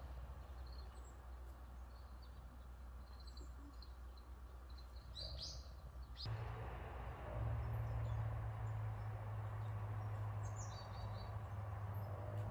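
Quiet outdoor ambience with scattered short, high bird chirps over a steady low hum; the hum gets louder about halfway through and stays.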